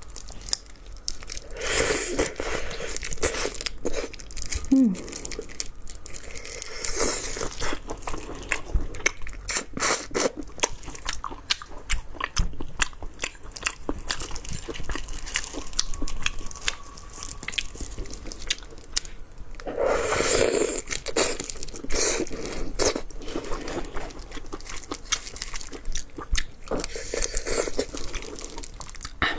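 Close-up eating sounds of raw shrimp in spicy marinade: shells cracking and crackling as gloved hands peel them, with biting and chewing of the raw shrimp. Dense small clicks run throughout, with a few louder, longer stretches of noise.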